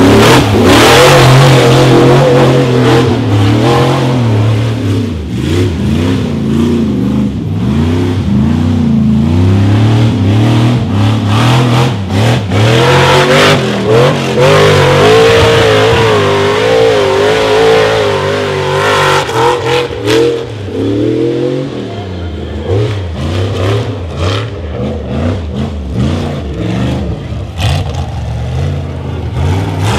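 Rock bouncer buggy's engine revving hard in repeated surges, its pitch rising and falling as the throttle is worked on a rocky hill climb, with sharp knocks mixed in. The engine drops lower and quieter about two-thirds of the way through.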